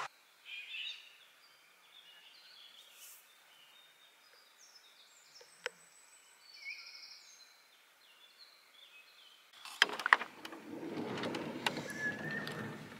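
Faint birdsong in pine woods: many short high chirps and whistles. Near the end, louder clicks and rustling noise take over.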